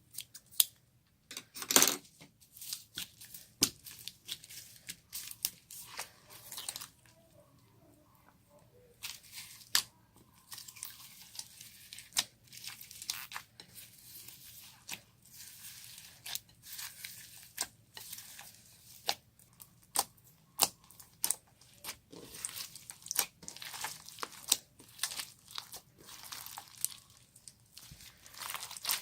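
Slime being stretched, squished and poked by hand, giving irregular sharp crackling clicks and pops with a few quieter pauses.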